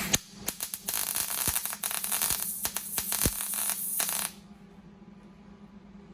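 Welding arc crackling and spitting in a continuous burst of about four seconds while welding a sheet-steel car floor pan, then cutting off suddenly when the arc stops.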